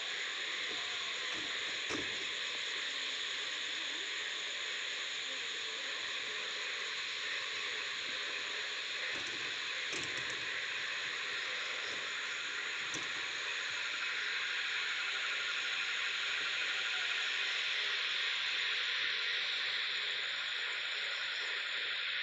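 Electric arc welding: the arc holds a steady sizzling hiss without a break, with a few faint clicks, growing slightly louder about two thirds of the way through.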